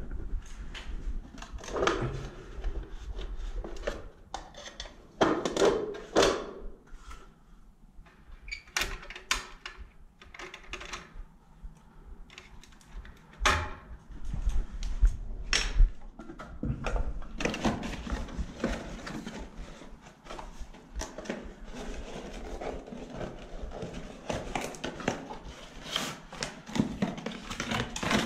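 Scattered clicks, knocks and rustles of hands working on a ceiling light fitting, taking off its cover and old 2D lamp, and rummaging in a tool bag.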